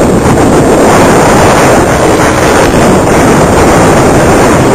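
Racing kart's Honda single-cylinder four-stroke engine under heavy wind noise on the microphone: a loud, steady rush in which no clear engine note stands out.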